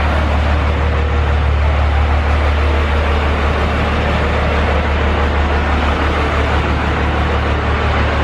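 12-valve twin-turbo Cummins diesel in a Ford pickup idling steadily, with a strong, even low hum.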